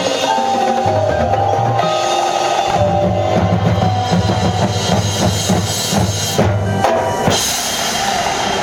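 High school marching band playing, with the drumline's bass drums and snares prominent under sustained brass and wind notes; the low notes break off briefly about seven seconds in.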